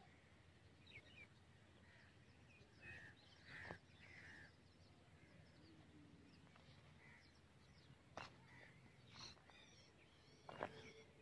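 Near silence with faint, scattered bird calls, short chirps, and a few soft knocks, the loudest near the end.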